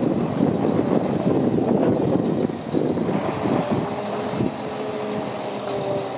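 Diesel engine of a 1999 Mack RD688S tri-axle dump truck running under load as the truck pulls away, its sound easing a little as it moves off.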